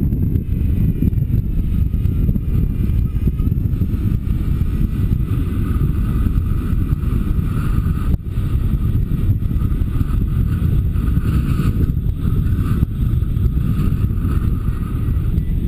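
Wind buffeting the microphone of a camera worn by a paraglider pilot in flight: a loud, steady low rumble. A faint wavering whistle sits above it.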